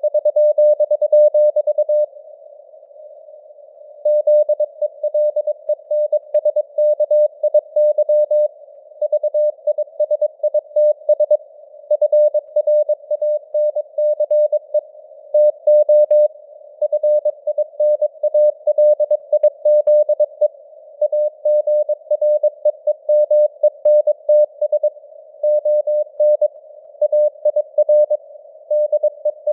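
Morse code at 22 words per minute: a pure tone of about 600 Hz keyed on and off in dots and dashes, with short gaps between words and a pause of about two seconds soon after the start. A faint band of simulated radio hiss sits around the tone.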